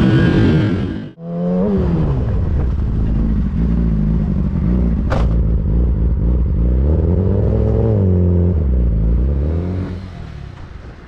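Yamaha R6's inline-four engine through an Akrapovic exhaust, revving up and down several times. A sharp click comes about five seconds in, and the engine fades near the end.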